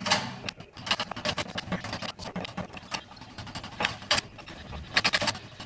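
Manual hydraulic cab-tilt hand pump on an LMTV military truck being worked with a steel-bar handle to raise the cab: an uneven run of metallic clanks and rattles with the strokes, louder bursts near the start, about four seconds in and around five seconds in. The pump is not yet tightened down and shakes on its mount.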